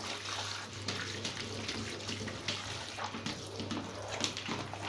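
Water running from a tap as a vacuum cleaner part is rinsed under it, with small clicks and knocks as it is handled.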